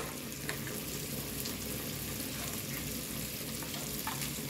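Butter sizzling steadily as it melts in a hot non-stick wok, with a few faint clicks.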